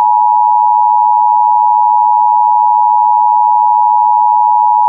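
Emergency Alert System two-tone attention signal: two pitches sounding together as one loud, unbroken tone. It heralds the severe thunderstorm warning that follows.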